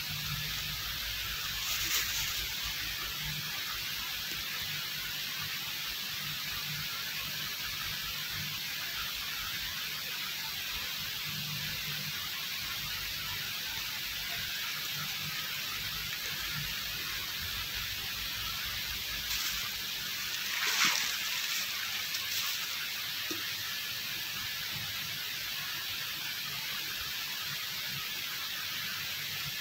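A steady airy hiss, with brief louder noises about two seconds in and again about twenty-one seconds in.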